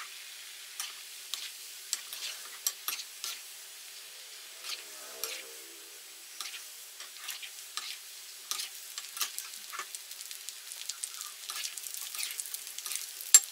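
Paneer fingers deep-frying in very hot oil: a steady sizzle full of frequent small crackles and pops, with one sharp knock near the end.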